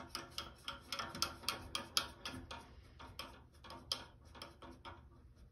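A rapid, slightly irregular series of light clicks and taps, about three a second, tailing off after about four seconds.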